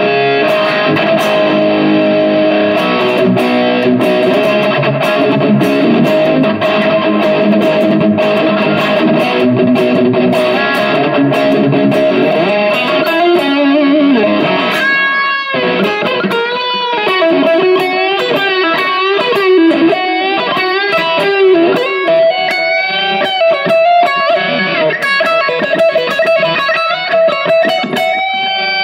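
Electric guitar (a Cate QM E06S) played through a Valeton GP200 multi-effects processor into a small Cort CM15R amp, picked up by a smartphone microphone. For about the first half it plays dense, sustained chords. After a brief break about halfway through, it switches to a single-note lead line with bent, wavering notes.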